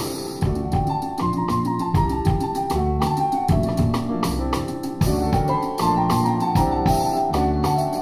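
Jazz piano trio playing live: a grand piano carries the melody over a plucked double bass, with a drum kit keeping steady time on the cymbals.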